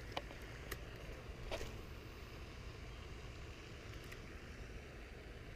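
Wind buffeting a chest-mounted camera's microphone as a steady low rumble. A few faint, sharp clicks come from handling the spinning rod and reel.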